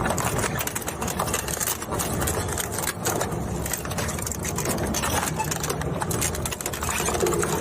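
Plastic shredder running, its motor humming steadily under a dense, continuous crackle of plastic being torn and crushed.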